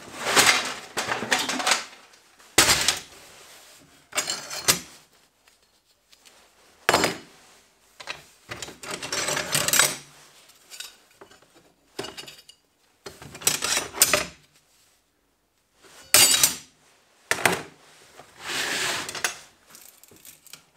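Steel flat-bar offcuts clanking and scraping against one another in a plastic basket as they are pulled out and sorted by hand, in a string of short clattering bursts with pauses between.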